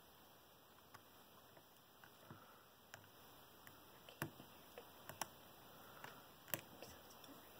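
Faint, scattered small clicks of a lock pick working the pin stack of a Master Lock No. 19 padlock while tension is held on the plug, over near silence.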